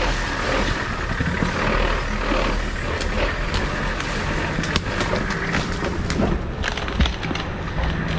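A 4x4 vehicle running at low speed on a rough off-road trail, its engine a steady low rumble under frequent sharp knocks and clatters from the rough ground, with one louder knock about seven seconds in.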